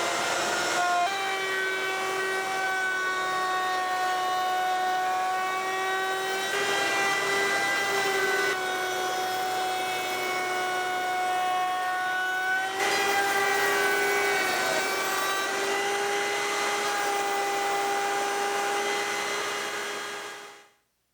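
Table-mounted wood router running at a steady high whine as it rounds over board edges. It is still reaching full speed at the start, its tone shifts abruptly a few times, and it cuts off near the end.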